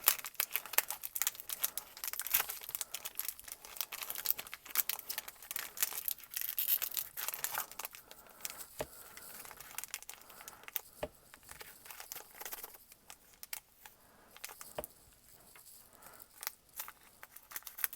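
Foil Pokémon card booster pack wrapper crinkling and tearing as it is worked open by hand, a stubborn pack that resists opening. The crackling is dense for the first half and thins out to scattered crinkles toward the end.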